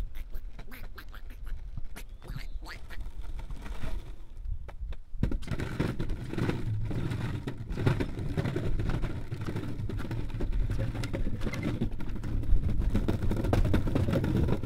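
Onda longboard's large wheels rolling along a concrete path, with ducks quacking a few times in the first seconds. About five seconds in comes a louder rumbling clatter of rapid knocks as the wheels run across the planks of a wooden footbridge; it cuts off sharply as the board rolls off the bridge at the end.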